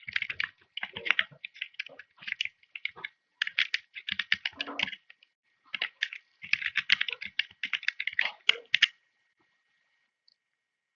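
Typing on a computer keyboard: quick runs of keystrokes broken by short pauses, stopping about nine seconds in.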